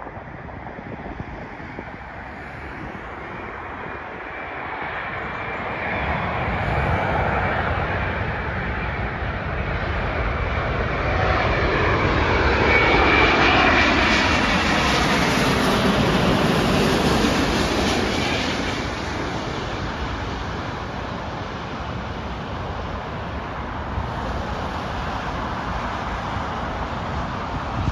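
Boeing 787-10 airliner on final approach passing low overhead. Its engine noise builds to a loud peak about halfway through, with a whine falling in pitch as it goes by, then settles to a lower, steady rumble as it flies away and lands.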